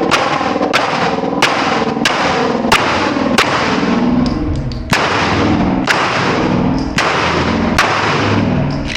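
Handgun shots fired one after another, about ten in all, mostly about two-thirds of a second apart with a longer gap around the middle, each a sharp crack. A steady, loud background sound runs under the shots.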